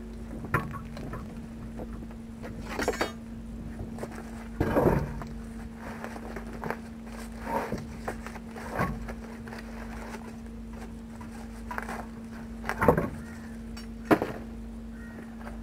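Scattered knocks, clanks and scrapes as a heavy truck wheel is levered with a steel bar and worked onto its hub, about ten irregular strikes, the loudest near the end. A steady low hum runs underneath.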